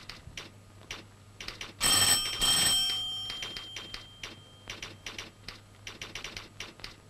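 An old electric telephone bell gives one double ring about two seconds in, two short bursts with a ringing tail. Scattered typewriter key clicks sound around it.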